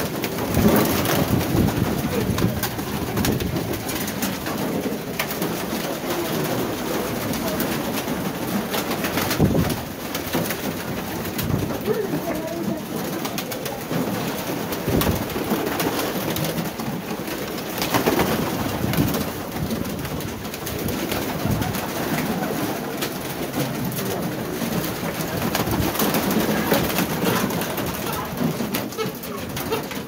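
A flock of domestic pigeons cooing continuously, many birds overlapping, with scattered short clicks among them.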